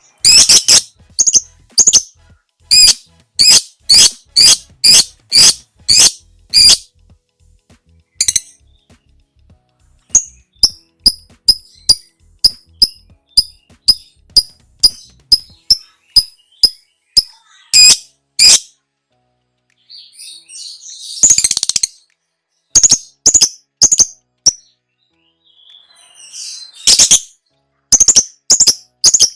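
Lovebird calling: runs of sharp, high chirps about two to three a second, broken by short pauses, with a harsh scratchy chatter about two-thirds of the way through.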